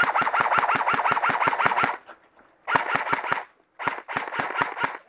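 Airsoft rifle firing full-auto in three bursts: a long one of about two seconds, then two shorter ones, each a quick even rattle of shots at about nine a second.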